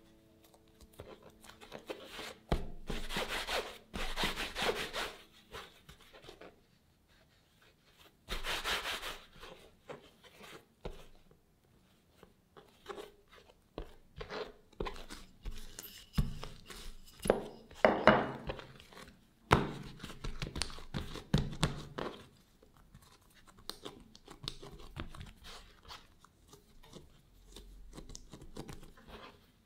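Hands rolling and pressing soft bread dough on a plastic cutting board: rubbing, scraping strokes in several short spells, with small taps and quiet gaps between.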